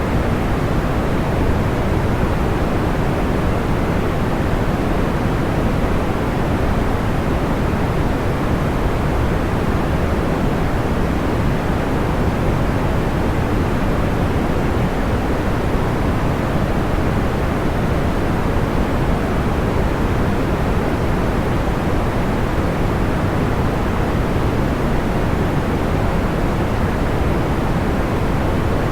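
Steady, soft white noise, deep and dull rather than hissy, holding an even level with no crackles or pops.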